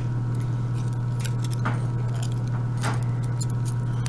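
Light metallic clicks and clinks of small brass lock pins and springs being worked out of a euro pin-tumbler cylinder, a few scattered taps, over a steady low electrical hum.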